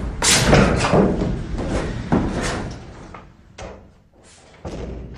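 Footsteps on a hard floor and an office door being shut: a run of knocks and thuds, loudest in the first second or so, then a few separate quieter knocks.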